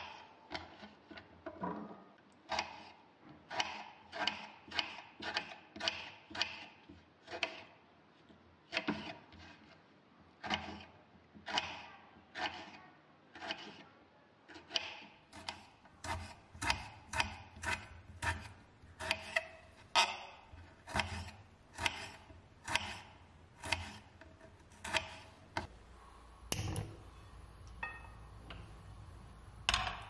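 Kitchen knife cutting potato and then tomato on a cutting board: a steady run of sharp knife taps against the board, about two a second.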